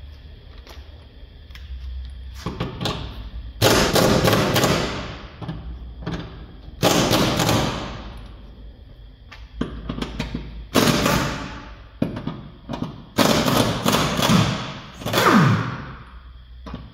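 Cordless impact wrench hammering on bolts in five bursts of about a second each; after the later bursts the motor's pitch falls as it spins down.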